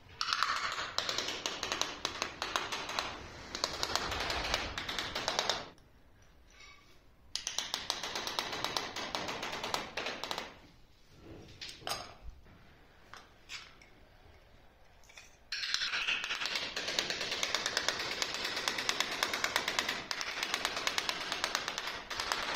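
Small metal blade scraping mortar out of the joints between ceramic floor tiles in rapid short strokes. The scraping comes in three long bouts, with a short pause about six seconds in and a longer one from about eleven to fifteen seconds, broken by a few single knocks.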